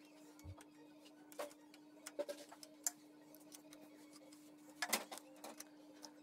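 Scattered light metallic clicks and taps of a hand tool on the bolts of a tractor transmission housing as the strainer cover is refitted, the loudest a quick pair about five seconds in, over a steady low hum.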